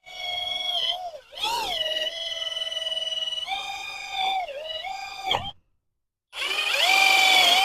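A loud, high-pitched squeal with strong overtones that holds steady, then dips and slides back up in pitch several times. It breaks off once, briefly, near the end.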